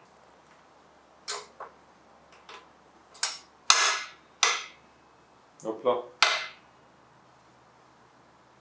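Metal tools and bike parts clinking and knocking, a string of separate sharp clinks with a short ring, the loudest about three and a half seconds in.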